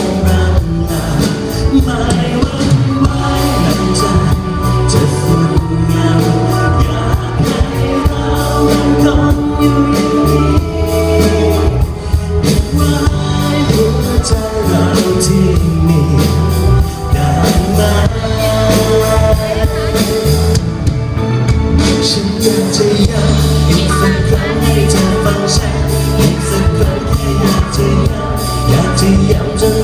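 Live band playing a song with a male lead singer, picked up from the audience at a concert with heavy bass.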